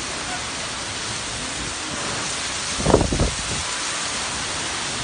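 Heavy rain pouring steadily in a windstorm, with one brief, loud low rumble about three seconds in.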